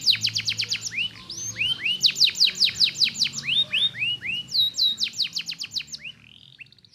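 Domestic canary singing: fast trills of repeated, sweeping whistled notes that switch from one rolling phrase to the next, then trail off about six seconds in.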